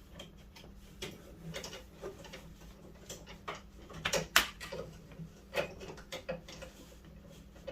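Irregular small clicks and knocks, loudest in a quick cluster about four seconds in, from hands working a plastic cable tie onto the door-handle rod inside a Fox-body Mustang door, fitted to take up play in the sticky handle.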